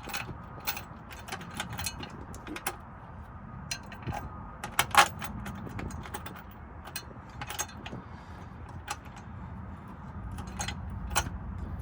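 Irregular light metallic clicks and clinks of hand tools and mounting hardware as nerf-bar brackets are fitted to the truck, with one sharper knock about five seconds in, over a low steady rumble.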